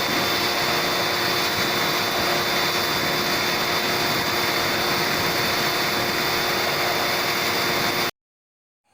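Electric pressure washer running steadily, spraying water through an air conditioner's evaporator coil to flush out the dirt. The noise cuts off abruptly near the end.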